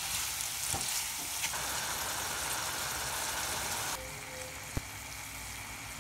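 Diced apples and brown sugar sizzling in a pan as their juices cook down, with one sharp click a little before the end.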